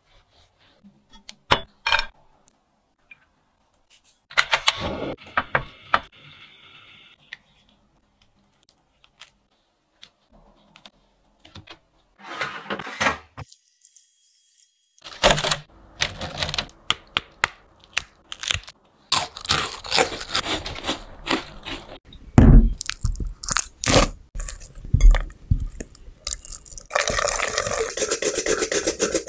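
A run of close-up kitchen preparation sounds. A serrated bread knife cuts through soft white bread, and utensils and bowls click, knock and scrape. Near the end there is a dense, rapid scraping in a glass bowl.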